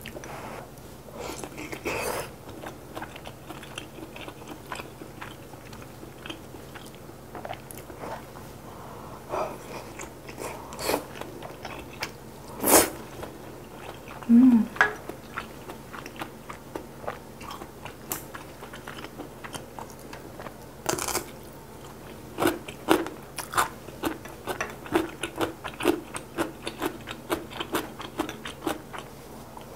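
Close-miked mouth sounds of a person chewing and biting noodle soup with fish roe and milt: soft wet chews broken by scattered crunches. About fourteen seconds in there is a short low voiced hum, and near the end the crunches come quicker and more evenly, about two a second.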